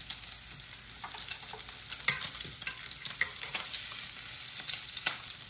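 Pork belly sizzling steadily on an electric grill pan, with a few light clicks of chopsticks against the grill.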